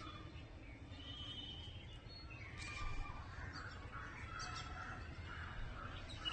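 Faint outdoor bird calls: scattered short chirps and brief calls over a steady low rumble.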